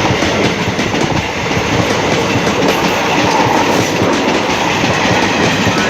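Train coaches rolling past at close range, with steel wheels knocking over the rail joints in a rapid, steady clatter.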